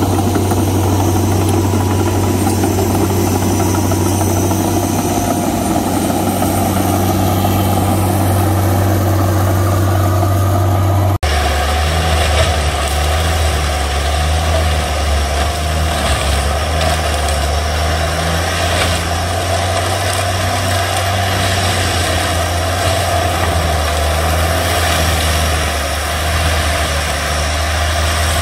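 Tigercat M726E forestry mulcher's diesel engine running steadily. After a sudden cut about eleven seconds in, the machine is heard at work mulching brush, its engine holding a steady, lower pitch.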